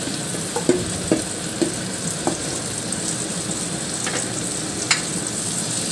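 Marinated mutton and browned onions sizzling in hot mustard oil in a kadhai, with a steel spatula scraping and tapping the pan a few times while stirring.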